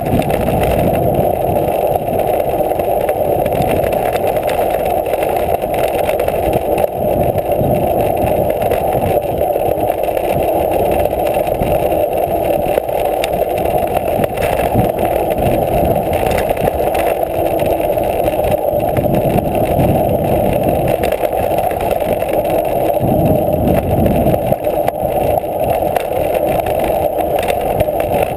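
Mountain bike rolling over a rough dirt trail, heard through a bike-mounted action camera: a steady, muffled rushing of wind and tyre noise with uneven low bumps and rattles from the ground.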